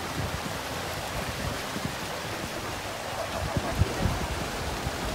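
Steady rushing outdoor hiss with irregular low wind buffets on the microphone, strongest about three and a half to four seconds in.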